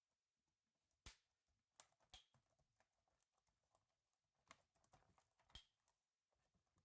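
Faint, scattered clicks and taps of small laptop parts and tools being handled, with a few sharper clicks about a second, two seconds, four and a half and five and a half seconds in.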